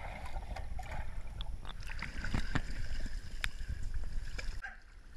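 Muffled pool water heard from underwater as a dog swims: a dull low rumble with bubbling, sloshing and scattered sharp ticks. The rumble drops away shortly before the end.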